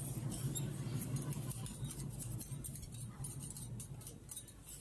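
Quiet crackling and light ticking from a hot teppanyaki griddle and the metal utensils on it, over a low steady hum.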